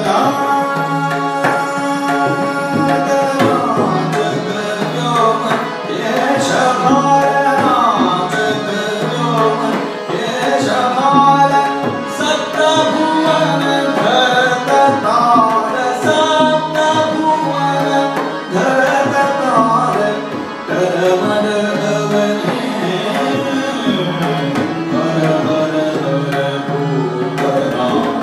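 Hindustani-style bhajan performed live: a male voice singing a melodic line with ornamented, gliding notes over steady tabla strokes and held harmonium notes.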